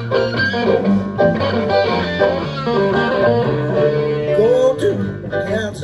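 Rock 'n' roll band music, guitar to the fore over a bass line.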